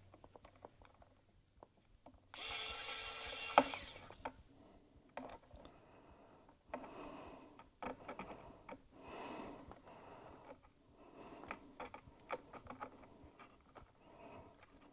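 Small-screwdriver work on the T5 screws holding the wireless antenna cables inside an opened iMac. About two seconds in there is a loud rasping burst lasting under two seconds, followed by fainter scrapes and clicks.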